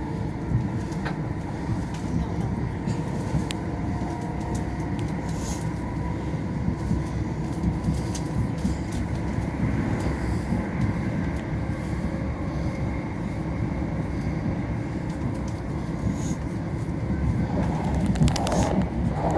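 Steady rumble of a c2c electric passenger train running at speed, heard from inside the carriage, with a faint steady whine and occasional clicks from the wheels on the track.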